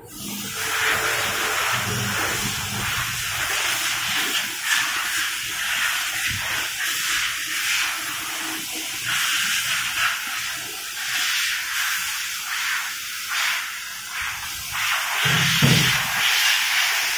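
Loud hiss of rushing air that starts suddenly and wavers in strength, with a couple of low thumps near the end.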